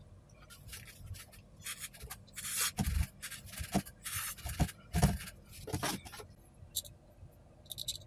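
Short scraping and rubbing strokes of tools and fingers working on a circuit board inside a metal case, with a few dull knocks, the loudest about three and five seconds in.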